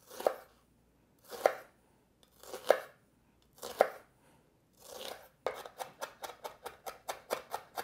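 Chef's knife cutting a shallot on a wooden cutting board: five slow slicing strokes about a second apart, then from about five seconds in a fast mincing run of knife knocks on the board, about five a second.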